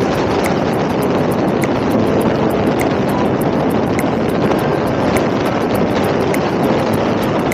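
Steady wind rushing over the microphone on a moving motorcycle, mixed with road and engine noise.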